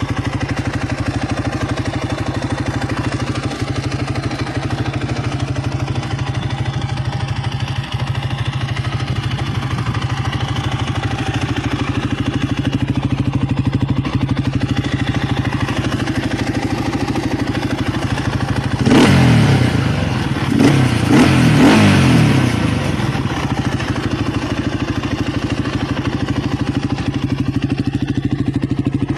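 Dinli 450cc ATV engine idling steadily, blipped in a few quick revs about two-thirds of the way through, each dropping back to idle.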